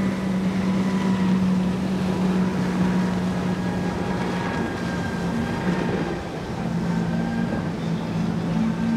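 Outboard engines of a Front Runner 39 center-console fishing boat running at a steady pitch, over the rush of water and wind. About halfway through, the engine note splits into two slightly different pitches.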